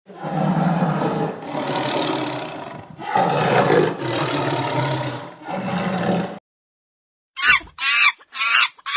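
A large animal giving a run of loud, rough calls, about five in a row over six seconds. It falls silent, then a chicken clucks in quick short bursts near the end.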